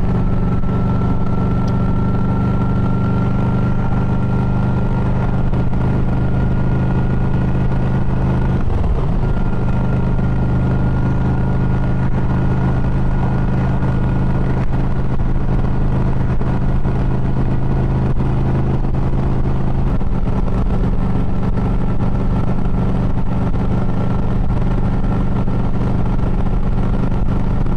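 Yamaha motorcycle engine running steadily under way, its note creeping up as it accelerates onto the highway, with a brief dip about nine seconds in.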